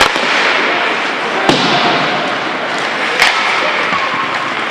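Ice hockey play: three sharp knocks of puck, sticks and boards about a second and a half apart, over a steady hiss of skating and rink noise.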